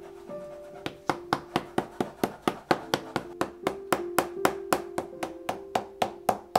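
Rapid, even hammer taps, about four a second, starting about a second in: a shoemaker's hammer tapping leather.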